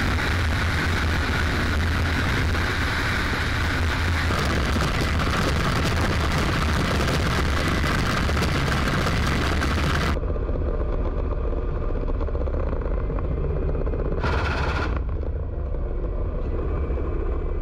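Ka-52 helicopter in flight: the steady low drone of its coaxial rotors and turbine engines, with a heavy rush of wind over an outside-mounted camera for the first ten seconds. The wind then cuts out abruptly, leaving the steadier, duller drone heard in the cockpit, and a short burst of the wind rush returns about fifteen seconds in.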